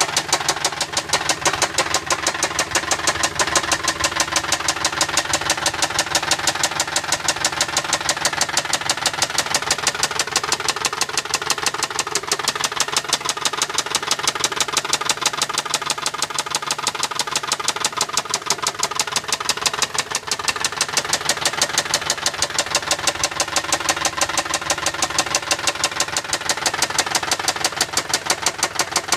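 Saab 9-5 3.0L V6 engine running with a loud, rapid, evenly spaced ticking throughout, which the owner takes for lifter noise.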